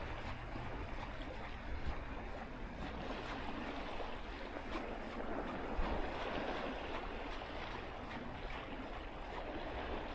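Small wind-driven waves lapping and splashing in shallow water, a steady wash of sound, with a low rumble of wind on the microphone underneath.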